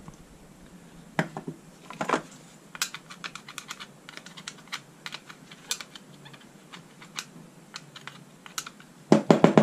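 Small metal tool picking and scraping at soot inside a removed EGR valve from a 2.0 CDTI diesel, the valve thickly coated with carbon: a run of light, irregular clicks and scrapes, with a louder rapid cluster near the end.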